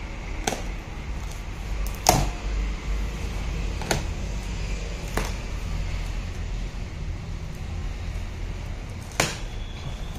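Handling noise from unboxing: a few scattered sharp clicks and knocks, about five, the loudest about two seconds in, over a steady low rumble.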